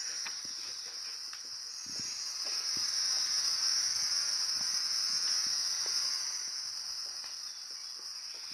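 Steady high-pitched insect chorus in the trees, with a broader hiss under it that swells about two seconds in and fades again near the end.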